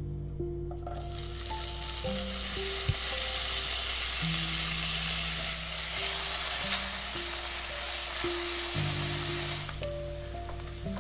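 Chopped bacon sizzling as it fries in an oiled stone-coated pan, stirred with a wooden spatula. The sizzle starts about a second in as the bacon hits the hot oil and quietens suddenly near the end.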